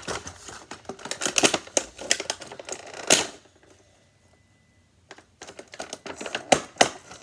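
Rapid clicks and rattles from a toy's plastic and cardboard packaging being worked open by hand, pausing for about a second and a half midway before the clicking resumes.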